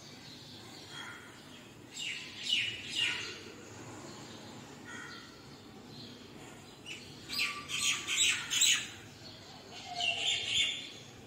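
Birds chirping in three short bouts of quick, high calls, with faint background between them.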